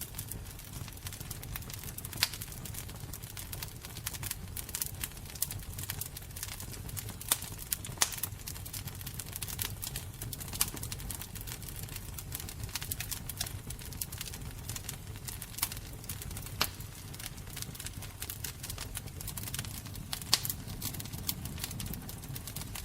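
Wood fire crackling, with many small irregular pops and a few sharper loud snaps over a low steady rumble of the flames.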